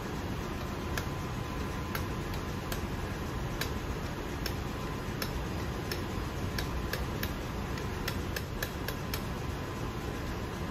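Hand hammer tapping a metal mandrel to drive apart the parts of a MAN B&W slide-type fuel valve held in a vise: sharp metallic taps, about one a second at first, coming several a second around eight seconds in. A steady hum runs underneath.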